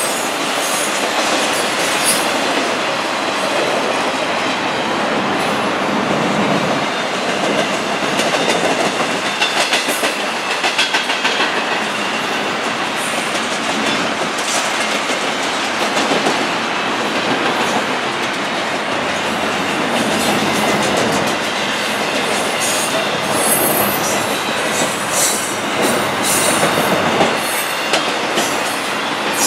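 Double-stack container well cars of a freight train rolling past: a steady rumble of steel wheels on rail, with repeated clicks over rail joints and a few brief high-pitched flange squeals.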